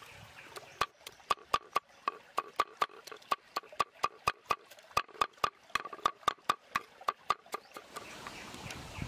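Cleaver chopping garlic on a wooden chopping block: quick, even knocks, about four a second, each with a brief ringing tone. The chopping starts about a second in and stops near the end.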